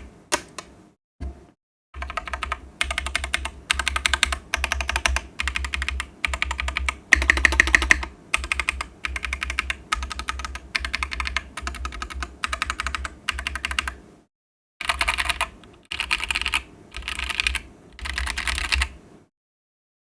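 Typing on a Jelly60 custom mechanical keyboard with factory-lubed Keygeek Avalon switches in a top-mounted carbon fibre half plate and JTK Griseann keycaps: a few scattered keystrokes, then fast, continuous key clacks in bursts of about a second. There is a brief pause about two-thirds through, and the typing stops shortly before the end.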